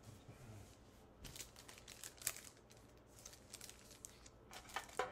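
Pokémon trading cards and foil booster-pack wrappers being handled: quiet, scattered crinkling and rustling in short bursts, louder near the end.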